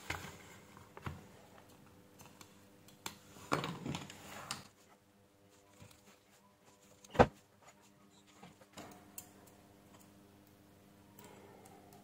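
Small handling noises from working on an opened tablet by hand with tweezers: scattered light clicks, a short stretch of scraping and rustling about three and a half seconds in, and one sharp click about seven seconds in.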